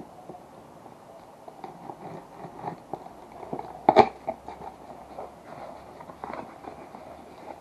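Scattered small clicks and knocks of handling or movement, with one sharp, louder click about four seconds in.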